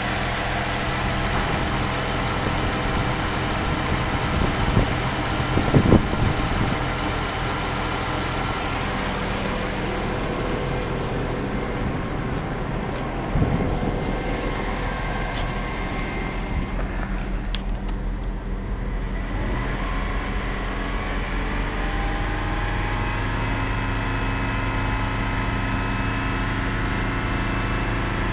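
A 2005 Holden Commodore's 3.6-litre Alloytec V6 running steadily in Park, its revs held at about 3,000 rpm near the end. A few dull thumps about five, six and thirteen seconds in.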